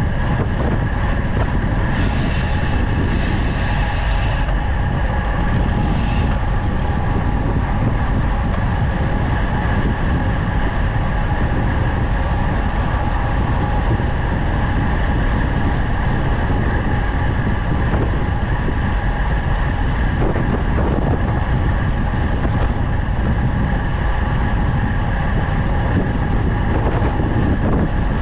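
Steady loud rush of wind buffeting the camera microphone, with tyre noise on tarmac, on a fast road-bike descent. A sharper hiss joins about two seconds in for a couple of seconds, and again briefly around six seconds.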